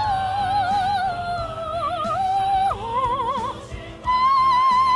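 A man singing high, operatic notes in a falsetto-like voice with wide vibrato. The pitch slides down between notes, breaks off briefly about four seconds in, and then a new high note is held.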